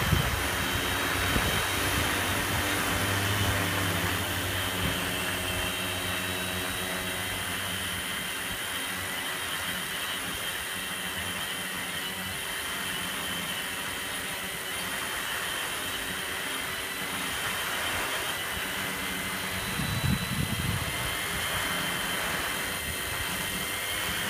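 Multirotor drone's electric motors and propellers whirring steadily in a low hover: several steady tones over a rushing hiss, their pitches drifting slightly as the motors adjust thrust. A brief low rumble comes about twenty seconds in.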